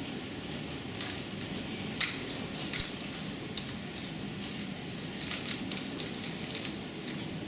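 Hailstorm with heavy rain: a steady downpour with scattered sharp ticks of hailstones striking hard surfaces, more of them in the second half.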